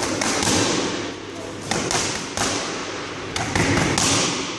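Boxing gloves smacking into focus mitts in quick combinations: about ten sharp hits, several in rapid twos and threes, with short gaps between the combinations.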